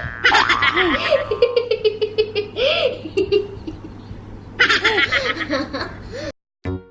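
High-pitched giggling laughter in quick pulsing runs with bouncy rises and falls in pitch, cut off abruptly near the end.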